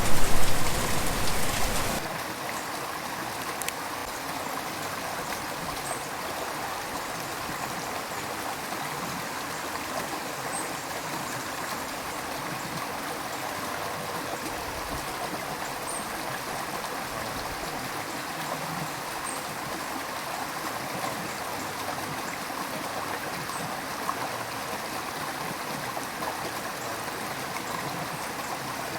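Gentle river flowing steadily, an even rush of water. About two seconds in, a louder rush of rain with a low rumble cuts off abruptly, leaving only the stream.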